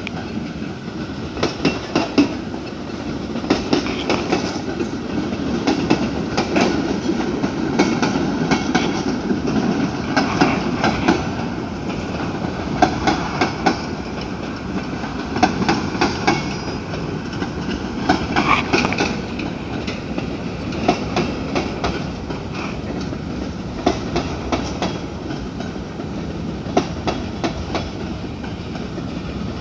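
Freight train cars (boxcars and covered hoppers) rolling past with a steady rumble, their steel wheels clacking over the rail joints in an irregular run of clicks.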